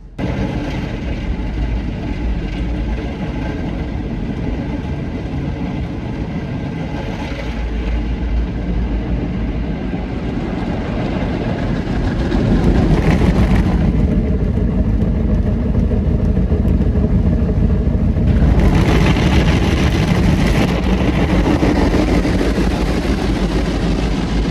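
Automatic car wash running, heard from inside the car: a loud steady rushing noise with a deep rumble that grows louder about halfway through and cuts off suddenly at the end.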